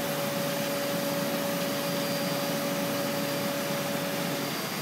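Willemin Macodel W408B five-axis mill running a corner-rounding cut on a stainless part under flood coolant: a steady hiss of coolant spray and machine noise, with a steady tone that cuts out near the end.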